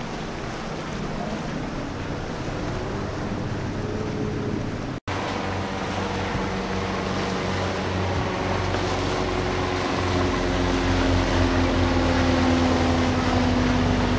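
Inboard diesel engines of a sportfishing convertible running steadily as the boat passes through the inlet, with the wash of its wake and the waves. The sound drops out for a moment about five seconds in, then the engine drone grows louder as the boat comes close.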